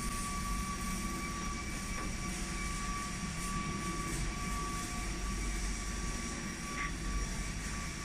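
Rotary scrubber running: the big drum turning on its motor-driven support wheels, a steady mechanical drone with a low hum and a constant high whine.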